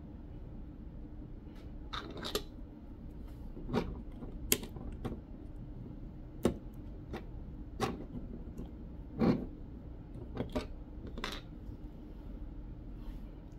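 Small plastic LEGO pieces clicking as flower, leaf and bee parts are snapped onto clips and studs on a roof. There are about a dozen separate, sharp clicks, spaced unevenly, over a faint steady hum.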